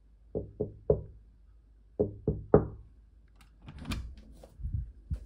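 Knocking: three quick knocks, then three more about a second and a half later, followed by a few softer, looser taps.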